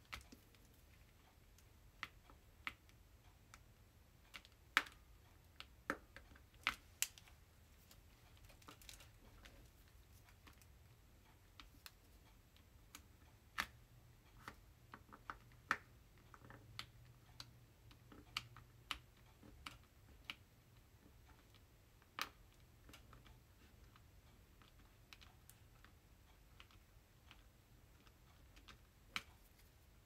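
Diamond painting drill pen picking round resin drills from a plastic tray and pressing them onto the canvas: small, irregular clicks and taps, some in quick clusters with pauses between.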